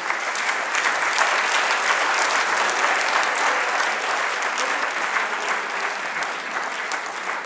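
A large audience applauding: dense, steady clapping from many hands, easing off slightly toward the end.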